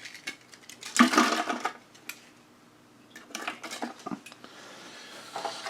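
Thin plastic offcuts from a trimmed RC body shell being gathered up and tossed away: light clattering and rustling in a few short bursts, loudest about a second in.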